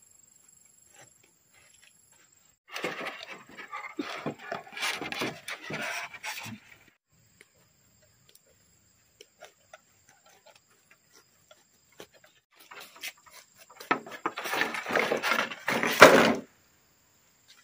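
Bamboo poles being handled: two stretches of rustling and scraping, the second ending in a sharp hollow knock as a pole is set down on the pile of bamboo. In the quieter stretches insects trill steadily.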